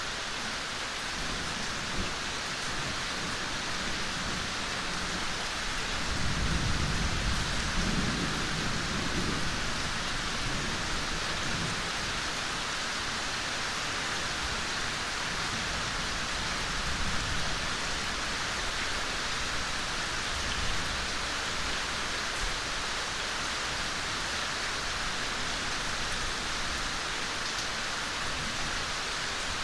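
Steady rain falling on forest foliage and ground, an even hiss of many drops. A low rumble swells about six seconds in and fades out by about ten seconds.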